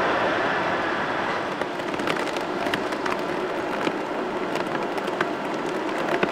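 Boeing 777 jet engine noise: a steady rushing roar that eases off a little over the first two seconds. Scattered sharp clicks sound through it.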